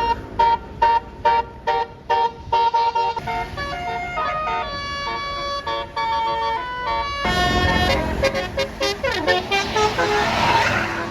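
Bus telolet horn (a Basuri multi-tone melody horn) playing a tune: rapid short repeated notes at first, then longer held notes stepping in pitch. About seven seconds in, the bus's engine and road noise get louder under the horn as it passes.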